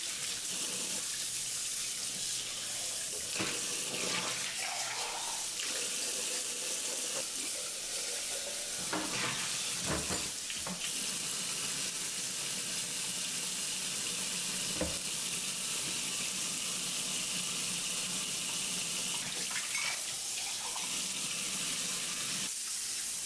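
Kitchen tap running steadily into a stainless steel sink while dishes are washed by hand, with a few light knocks of dishes and utensils.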